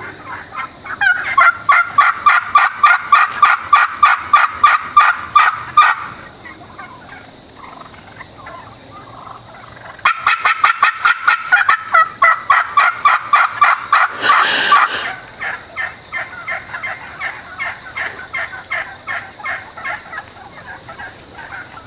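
Wild turkey hens calling in fast runs of short, evenly spaced yelping notes, about five or six a second: a loud run for about five seconds, a pause, then another loud run that ends in a short rough burst, followed by fainter calling.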